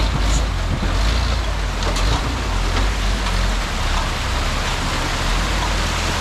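Cut-down Toyota 4Runner's engine running low and steady as it crawls up a waterfall, over an even hiss of rushing water.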